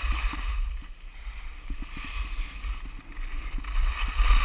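Skis scraping and chattering over icy, hard-packed snow at speed, with wind buffeting the microphone. The scraping eases for a couple of seconds in the middle and grows loud again near the end.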